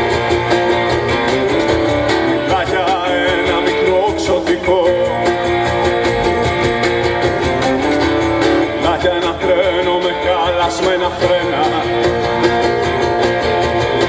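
Live rock band playing: strummed acoustic guitar and electric guitar over drums keeping a steady beat.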